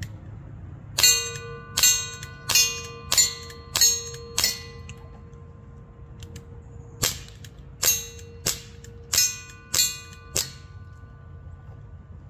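Barra Schofield CO2 air revolver fired in two quick strings of six shots, each a sharp pop with the ring of struck steel targets. The ringing carries on between the shots.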